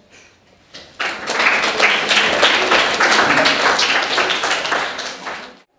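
Audience applauding, starting about a second in and cutting off suddenly near the end.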